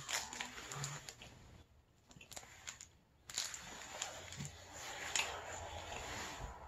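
Plastic cheese-stick wrapper crinkling and rustling as it is peeled and handled, with small clicks. It eases off for a moment around two seconds in, then rustles steadily again from a little past three seconds.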